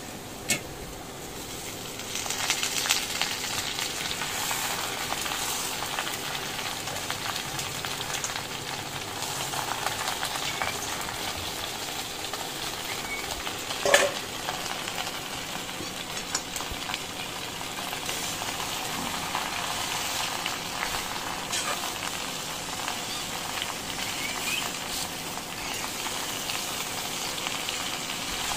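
Freshly washed kena saag (Commelina benghalensis) leaves sizzling in hot oil in a kadhai with frying onions, the sizzle swelling about two seconds in as the wet greens go into the pan. A single sharp knock of the spatula on the pan comes about halfway through.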